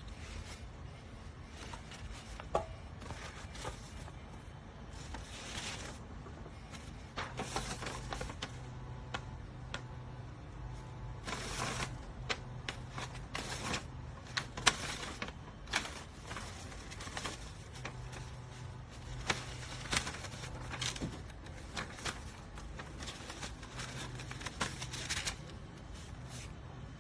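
3D printer running a print with a low motor hum that comes and goes, under irregular sharp crackling pops like Rice Krispies: typical of moisture in the filament flashing to steam and bursting at the hot nozzle.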